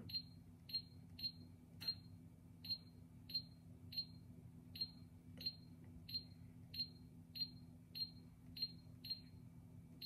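Miele G7392SCVi dishwasher's touch control panel beeping at each press of the arrow button while scrolling through the settings menu: a series of short high beeps, roughly two a second. A faint steady low hum runs underneath.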